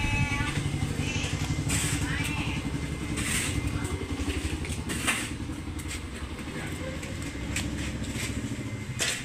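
Small motorcycle engine running at low revs with a rapid, even putter, fading slowly as it pulls away.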